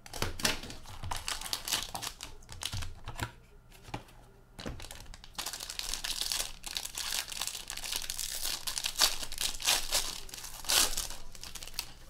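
Packaging on a box of hockey cards crinkling and tearing as it is unwrapped and opened, in dense runs of crackles with a short lull about four seconds in.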